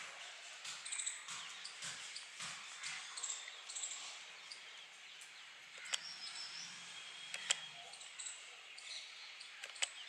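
Faint outdoor ambience with small birds chirping, broken by a few sharp taps or clicks about six seconds in, again a second and a half later, and just before the end.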